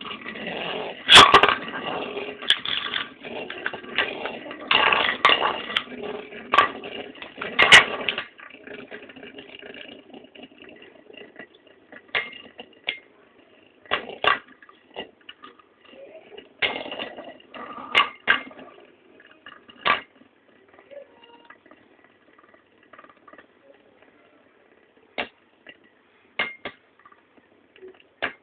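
Two Beyblade spinning tops, Lightning L-Drago 100HF and Earth Eagle 145WD, whirring and scraping against each other and the tray, with sharp clacks as they collide. After about eight seconds the whirring dies down to a faint hum with scattered clacks as the tops slow.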